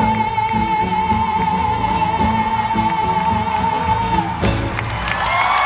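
A woman's voice holds one long, high final note of a show tune over a live band. The band cuts off on a final hit about four and a half seconds in, and the crowd starts cheering and whooping.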